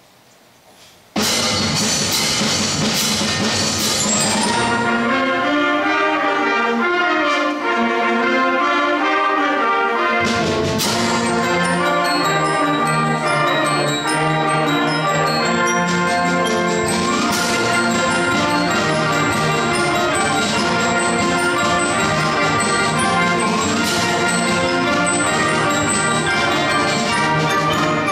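Youth concert band of woodwinds, brass and mallet percussion playing a piece, coming in suddenly and loud about a second in. A second strong accented hit comes about ten seconds in, where the low brass joins.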